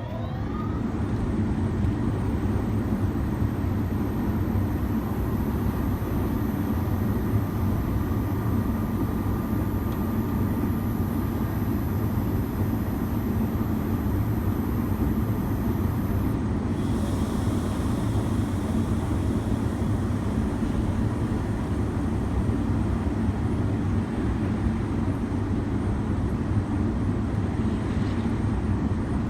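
Ingersoll Rand IRN20H-CC 20 HP rotary screw air compressor spinning up with a quick rising whine, then running steadily. A hiss joins about halfway through.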